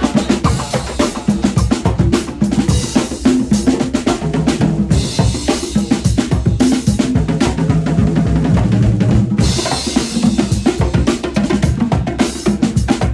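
Soundtrack music: a fast drum-kit beat with bass drum and snare over a bass line.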